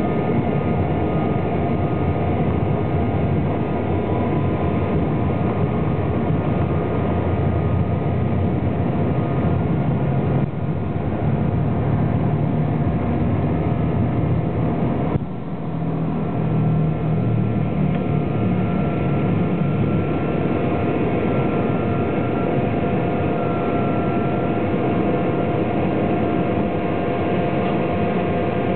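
Learjet 45's twin Honeywell TFE731 turbofans heard from inside the cabin at takeoff power: steady, loud engine noise with several steady whining tones. A low rumble, the wheels on the runway during the takeoff roll, runs through the middle and fades once the jet is airborne.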